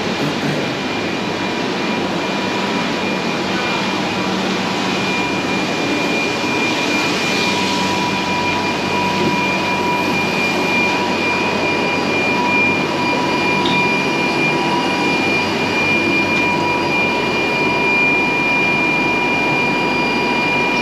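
Steady ambience of a busy seafood market: a continuous rushing noise with a constant high machine whine, which grows more prominent about a third of the way through.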